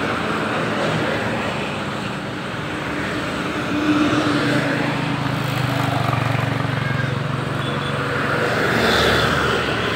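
Road traffic: a heavy vehicle's engine and tyres passing, with a low hum that swells through the middle and fades again.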